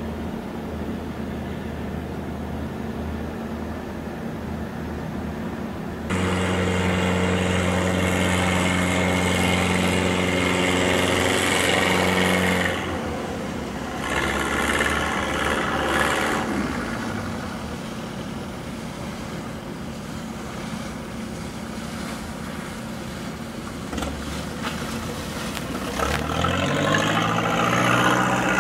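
Boat engines running steadily, with the sound changing abruptly a few times between passing boats. Near the end an engine speeds up, its pitch rising.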